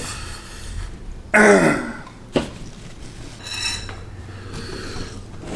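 A person clears their throat once, a short voiced sound falling in pitch about a second and a half in, a reaction to the burn of very spicy noodles.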